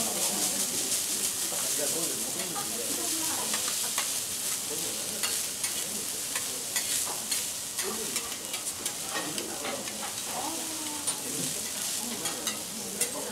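Food sizzling on a steel teppanyaki griddle, with metal spatulas clicking and scraping against the plate as the food is stirred and turned.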